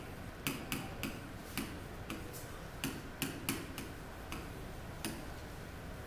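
Stylus tip tapping and clicking against the glass of an interactive touchscreen display during handwriting: a run of irregular sharp clicks that stops about five seconds in.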